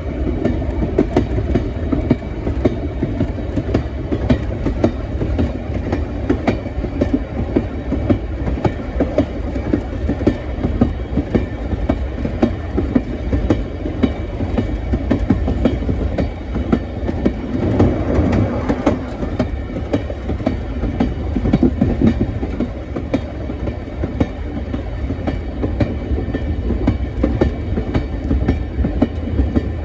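Train running on the rails: a steady low rumble with dense, uneven clicking and knocking from the wheels over the track, a little louder about two thirds of the way through.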